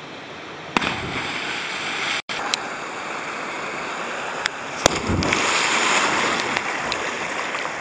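Steady rush of river water with wind on the microphone, broken by a brief gap about two seconds in. About five seconds in a sharp knock is followed by a louder surge of splashing as a jumper plunges into the pool.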